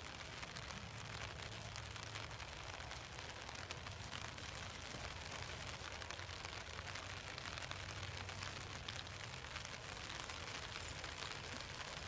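Steady outdoor background hiss with a low hum underneath; no distinct event stands out.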